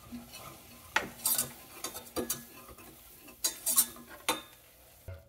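Wire whisk stirring flour into melted butter in a stainless steel saucepan to start a roux, with irregular metal clinks and scrapes against the pan over a faint sizzle.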